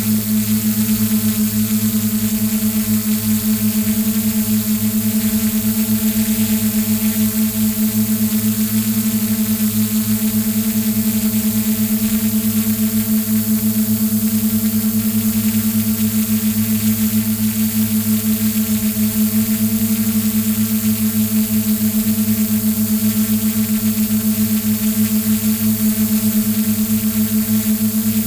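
Steady buzzing hum of a hexacopter's six electric motors and propellers (DJI E310 propulsion system), heard from the camera mounted on the aircraft, with a constant hiss over it and a fast, slight beating.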